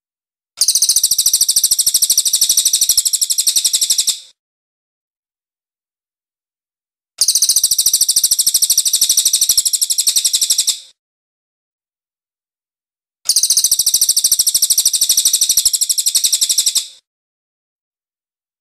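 Crested jay (cililin) giving a rapid, high-pitched rattling trill in three bouts of about three and a half seconds each, with silent pauses of about three seconds between them.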